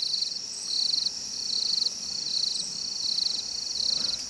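Night insect chorus: a cricket repeats short, rapidly pulsed high-pitched chirps a little more than once a second, over a steady high-pitched drone from other insects.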